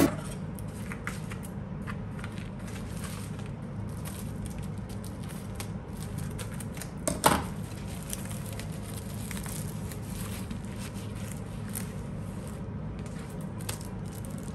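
Plastic padded mailer crinkling and rustling as it is handled and opened, with a short, louder rip about seven seconds in.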